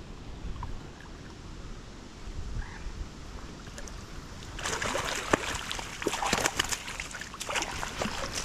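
Hooked trout splashing and thrashing at the water's surface as it is landed, in a run of irregular splashes that starts a little past halfway.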